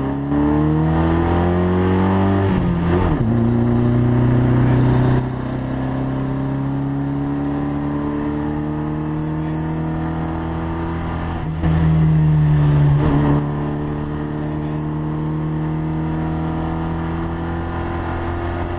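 Abarth hill-climb car's engine heard from inside the cabin, pulling hard under acceleration. The pitch climbs steadily, with a gear change about 3 s in and another about 12 s in.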